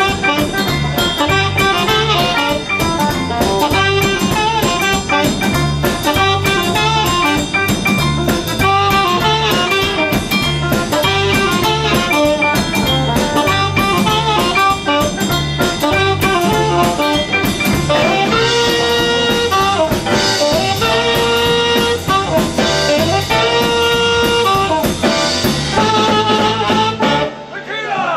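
Live garage-swing band playing: saxophone lead over electric guitar and a steady drum beat. In the last ten seconds the saxophone plays short repeated riffs, and the band drops out briefly near the end.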